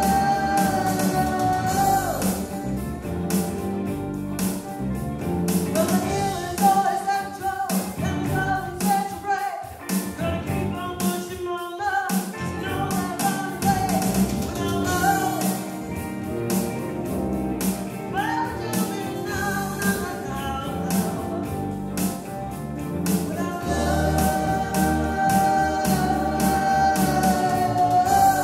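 Live band music: a woman singing lead over electric guitar, bass guitar and drums, holding long notes at the start and again near the end.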